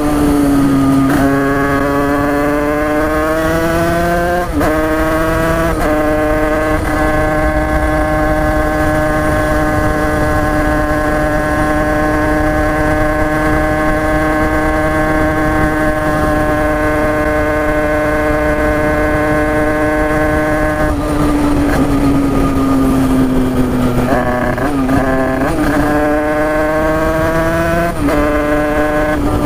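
Tuned Derbi two-stroke dirt bike engine, high-pitched, pulling up through the gears with sharp drops at each shift. It then holds steady high revs for about fifteen seconds, sinks as the throttle eases, gives a few quick blips and climbs again through another shift.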